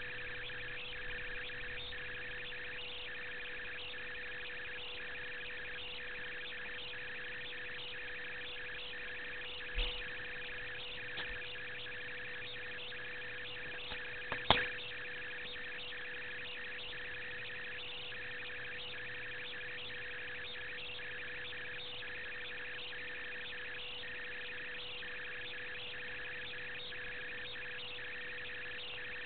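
Self-noise of a low-quality camera: a steady "reeling" noise, a constant tone with a fast, even flutter above it. One sharp click comes about halfway through, and a soft thump a little before it.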